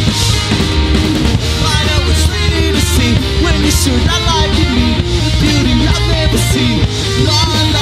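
Rock band playing live with distorted electric guitars, bass and drums, with cymbal crashes every second or so, recorded dry straight off the mixing desk.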